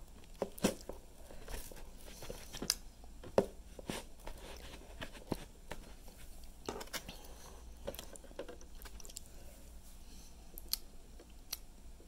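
Kitchen knife slicing a ripe chili pepper pod on a paper plate: scattered soft crunches and clicks as the blade cuts through the flesh and meets the plate.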